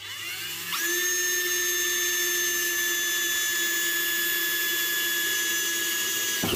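Electric drill spinning a metal-cutting hole saw into the steel firewall of a 1948 Ford F5. The motor winds up to a steady whine about a second in, runs evenly at full speed, then stops suddenly at the end.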